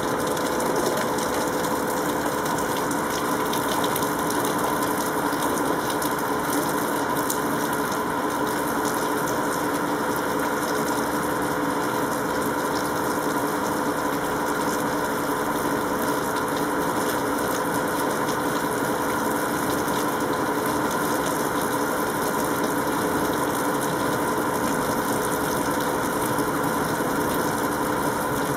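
Steady machine hum: a constant drone with several held tones over a noisy hiss, unchanging throughout.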